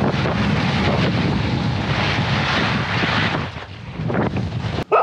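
Wind rushing over the camera microphone together with skis hissing and scraping across hard, icy snow during a fast downhill run. The noise is steady and cuts off abruptly near the end.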